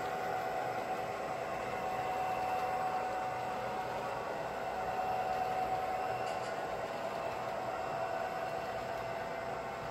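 Model freight train running on its layout track: a steady whirring rumble of wheels on rails as a long string of double-stacked container well cars rolls past, with a faint steady whine over it.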